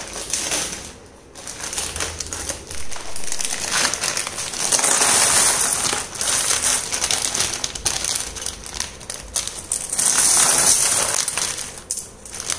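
A plastic packet crinkling as dry, brittle seed pods are shaken out of it onto a woven bamboo tray, the pods rustling and crackling under the hand. There are two louder spells, about five seconds in and about ten seconds in.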